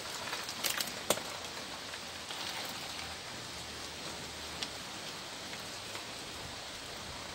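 A thin disposable plastic cup crackling and clicking a few times, about a second in, as a seedling's soil plug is worked out of it, and once more near the middle as the plug is set into a pot. A steady hiss runs underneath throughout.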